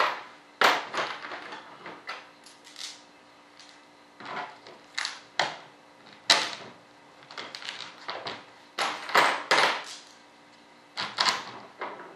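Metal nuts and bolts clinking and clattering as they are fitted through the bolt holes of a composite mold: short, sharp, irregular clicks, one or two a second, with a faint steady hum underneath.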